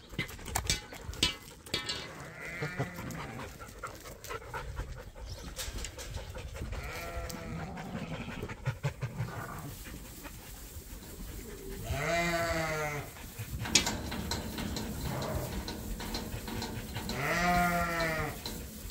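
Sheep bleating in a barn: four wavering calls, the two loudest about twelve and seventeen seconds in and each about a second long, over scattered knocks and shuffling as the flock moves.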